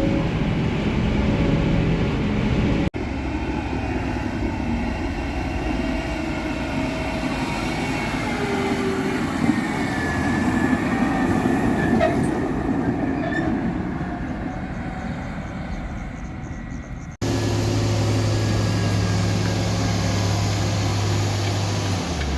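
Heavy diesel farm machinery of a silage corn harvest, a forage harvester and tractors, running steadily. The sound changes abruptly twice, about three seconds in and again near the end, where a steady low engine drone takes over.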